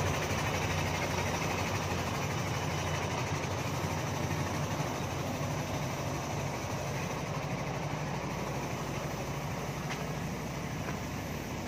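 An engine idling steadily: a continuous low hum that holds even throughout.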